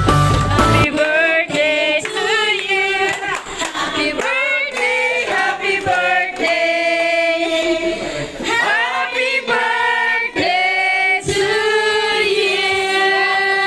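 A few people singing together, led by a woman's voice on a microphone, with long held notes. Music with a heavy bass plays for about the first second before the singing takes over.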